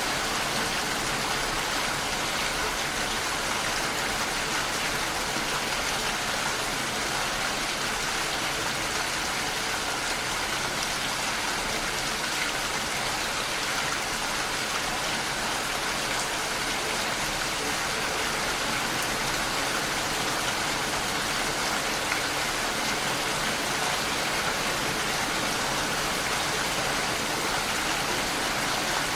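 Steady rain falling and pattering on a window pane, an even hiss with no let-up.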